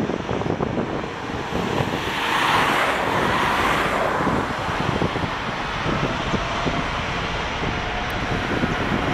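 Boeing 777 jet engines running as the airliner taxis, a continuous rumble and hiss. The whine and hiss swell louder about two to four seconds in, then ease back.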